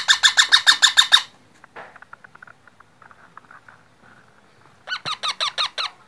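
Baby parrot (parakeet chick) calling in rapid runs of short harsh squawks, about eight a second: a loud run at the start, a fainter run in the middle, and another loud run about five seconds in.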